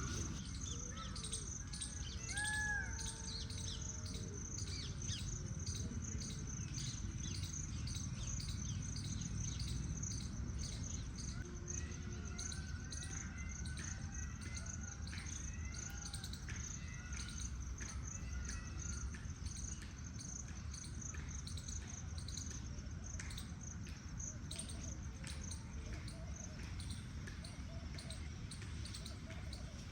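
Forest ambience: birds chirping and calling over a steady high insect trill, with a few clearer calls about two seconds in and again midway, and a low rumble underneath.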